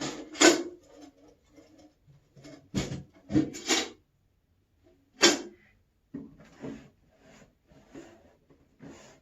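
Rummaging through tools while searching for one: irregular knocks and clatters of tools being picked up and set down, the loudest about half a second and about five seconds in, then softer rattling and rustling.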